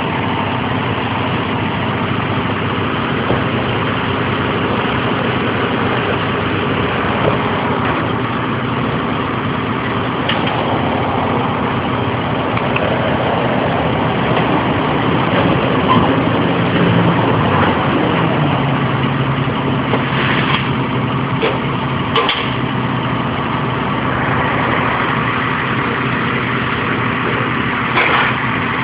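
Fire ladder truck's diesel engine running steadily at idle, its pitch dipping slightly about two-thirds of the way through. A few short clicks and knocks are heard over it.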